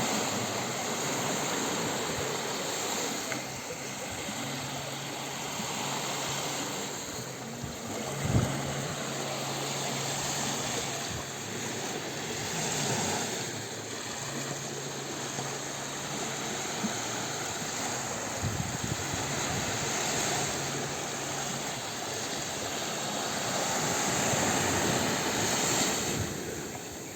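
Gentle sea waves washing onto a beach, the surf swelling and easing every few seconds. A low hum comes and goes underneath, and a single sharp knock sounds about eight seconds in.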